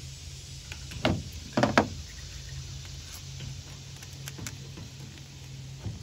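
Plastic wire-harness connectors on a Samsung front-load washer's control board being pried and pulled off with a small screwdriver: a few sharp clicks and rattles, the loudest about one second and nearly two seconds in, then fainter ticks, over a steady low hum.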